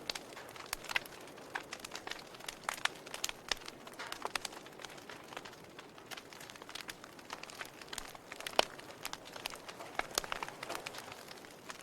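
Wood fire in a fireplace crackling: irregular sharp pops and snaps over a soft steady hiss, with one louder pop about eight and a half seconds in.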